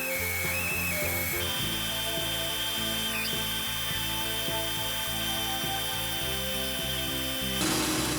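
Background music with sustained chords that change every second or two.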